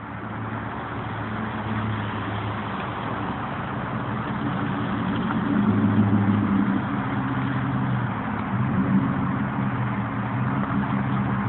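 A motor vehicle's engine running steadily, a low hum over a steady wash of noise.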